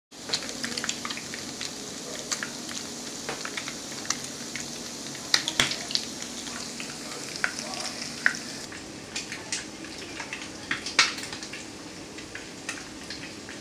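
Food frying in hot oil in a pan: a steady sizzle with many scattered pops and crackles.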